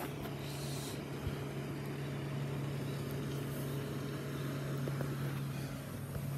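A motorboat's engine making a steady, unchanging drone as the boat passes out on the lake.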